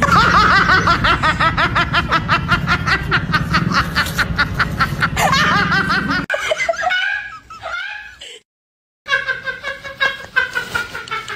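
Meme laugh sound effects played one after another. First comes a long, fast, rhythmic laugh of about five pulses a second that cuts off sharply about six seconds in. Then a shorter laugh, a brief moment of silence and another laughing clip follow.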